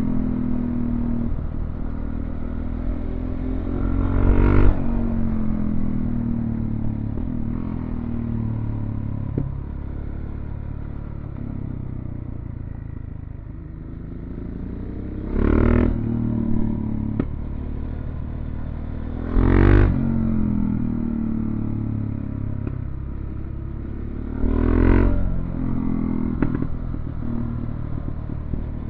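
Motorcycle engine running at road speed, heard from on board, its revs rising and falling through the bends over road and wind noise. Four brief louder bursts of noise break in.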